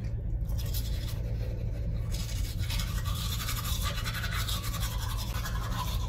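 Manual toothbrush scrubbing teeth in quick back-and-forth strokes, a wet scratchy brushing that starts about half a second in, over a steady low hum.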